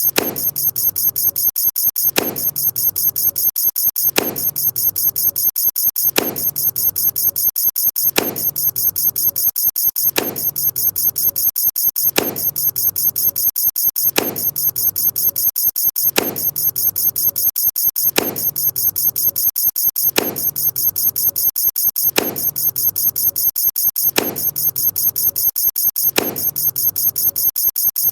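Sound-effect clips fired in rapid succession: a rooster-crow effect retriggered many times a second, so only a clipped, chirpy fragment repeats. A balloon-pop effect lands about every two seconds.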